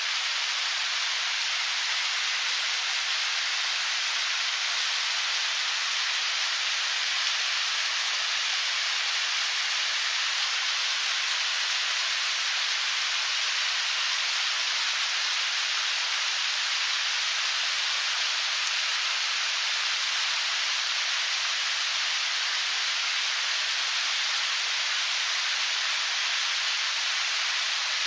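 Waterfall running with low flow: a steady, even rush of falling water, mostly high in pitch and without a deep rumble.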